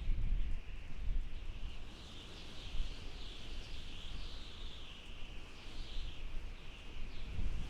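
Desert wind howling: a high whistling band that wavers up and down in pitch, over a gusting low rumble.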